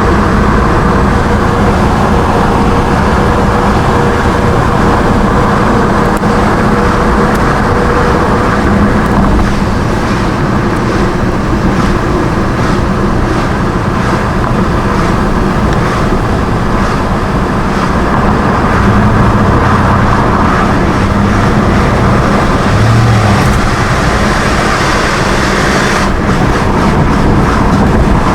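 Steady engine and tyre noise of a car being driven along a highway.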